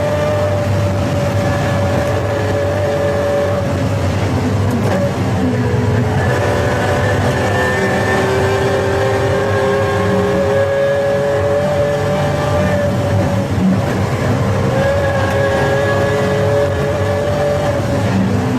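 Pagani Zonda F Clubsport's V12 engine running hard at speed, its note holding and gliding in pitch with changes of pitch about five seconds in and again around fourteen seconds in.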